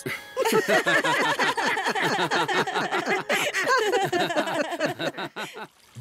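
Several cartoon voices laughing together in quick, overlapping bursts, stopping abruptly just before the end.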